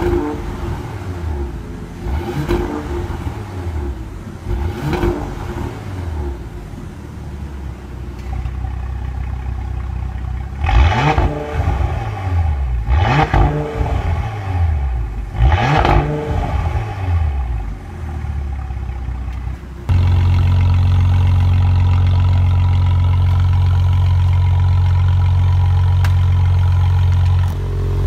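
Porsche Panamera with an aftermarket catless downpipe and valved cat-back exhaust, revved in short blips at standstill: three softer blips with the exhaust valves shut, then three louder, sharper blips once the valves are opened from a phone app. About twenty seconds in the sound switches abruptly to the engine idling with a loud, steady low drone.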